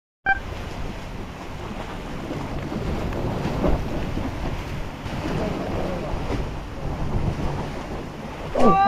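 Steady wind buffeting the microphone, mixed with sea waves washing against the breakwater tetrapods, starting suddenly a moment in.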